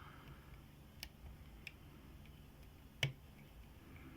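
Faint, sparse clicks of a pick and tension wrench working the pins of a brass Yale YE1/40 padlock, a few ticks with the loudest about three seconds in.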